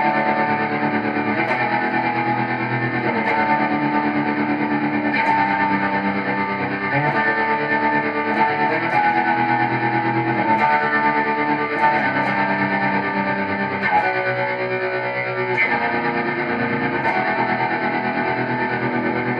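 Squier electric guitar played through an M-Vave MK-300 multi-effects preset: notes and chords held and changed every second or two, with faint pick attacks.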